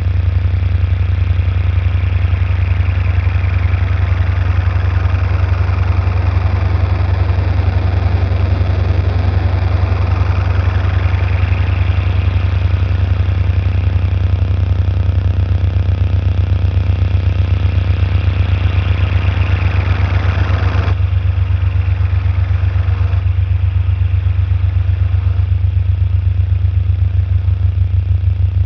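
Experimental electronic soundscape: a loud, steady, low pulsing drone with noisy swells sweeping down and back up in pitch above it. The upper layer cuts off suddenly about three-quarters of the way through, leaving the low drone.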